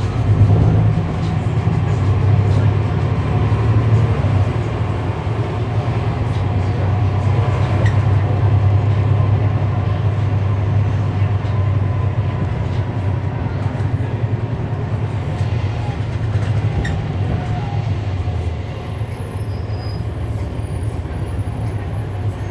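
Cummins ISL9 inline-six diesel of a 2011 NABI 40-foot transit bus running, heard from inside the bus, a steady low drone with scattered light clicks and rattles. The engine quiets somewhat about three-quarters of the way through.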